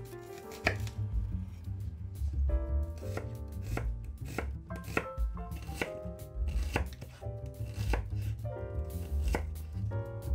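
Chef's knife slicing a raw onion into strips on a bamboo cutting board: a steady series of crisp knife strikes against the board, roughly one or two a second.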